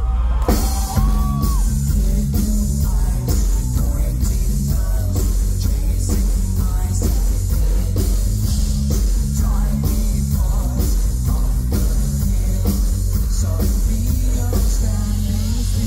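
Live band playing loud through a concert PA, with a steady drum beat and heavy bass, and singing and shouted vocals over the top.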